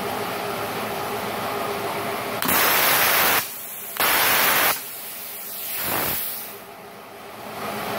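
Plasma cutter torch (MultiPro CUT 120 G-TY) fired twice with no workpiece, each firing a loud, even hiss of air through the pilot arc lasting about a second. A softer rush of air swells and fades a little later. A steady hum runs underneath.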